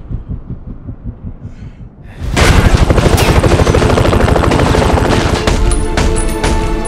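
Low, rhythmic pulsing, then about two seconds in a burst of sustained, rapid automatic machine-gun fire breaks in loudly and keeps going.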